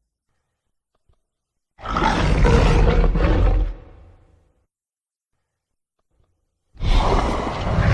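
Two deep, rough creature roars, designed sound effects for a giant Bewilderbeast dragon. Each lasts about two seconds, with a few seconds of silence between them; the second begins near the end.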